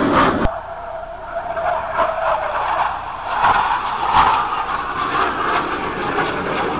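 Jet aircraft engine roar from a jet flying overhead, swelling and easing as it passes. The low rumble drops away abruptly about half a second in.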